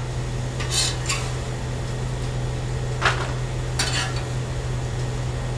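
Metal spatula scraping and clinking against a steel flat-top griddle as diced potatoes are turned, four short strokes, over a steady sizzle and a constant low hum.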